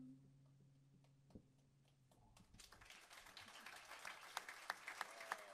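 The last held electric bass note dies away, then an audience starts applauding about two and a half seconds in, the clapping growing.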